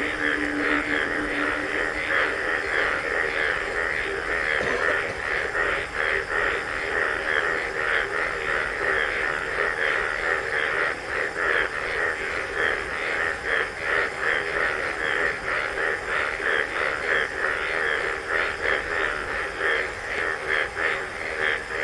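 Steady rain falling on the forest: a dense hiss made of many small drops, with the level flickering unevenly.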